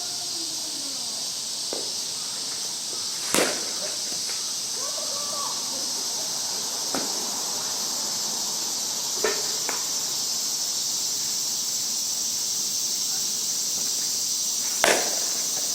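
Two sharp cracks of a softball bat hitting the ball, about three seconds in and again near the end, with a few lighter knocks between, over a steady high chorus of insects.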